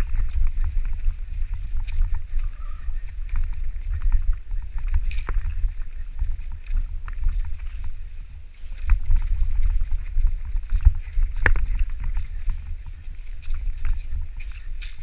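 Mountain bike riding over a rocky trail: wind rumbling on the microphone, with irregular clattering knocks and rattles from the bike over rocks, one sharp knock about eleven and a half seconds in.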